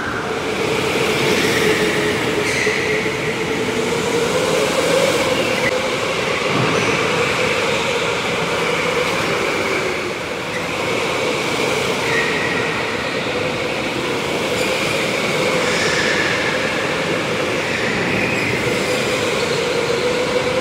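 Electric go-karts running around an indoor track, their motors whining with a pitch that rises and falls as they speed up and slow down.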